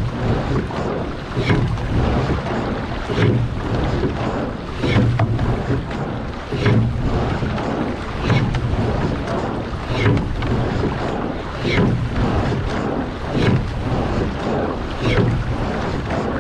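Two-man rowing shell being rowed hard at about 35 strokes a minute: a low knock and splash comes with each stroke, about every 1.7 seconds. Under it runs the steady rush of water along the hull and wind on the microphone.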